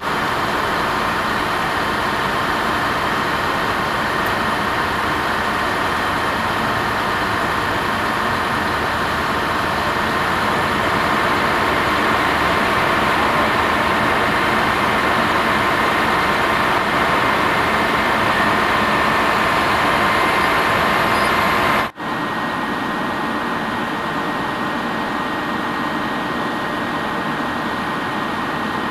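A vehicle engine idling close by: a steady, loud running noise with a steady whine on top. It drops out for an instant about three-quarters of the way through, then carries on slightly quieter.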